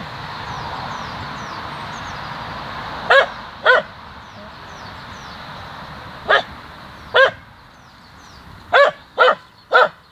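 A dog barking: seven short single barks, two about three seconds in, two more around six to seven seconds, and three in quick succession near the end.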